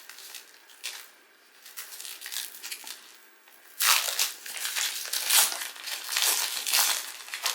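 Plastic wrapper of a Donruss Optic trading-card pack being handled and torn open. Faint rustling at first, then loud, rapid crinkling from about four seconds in.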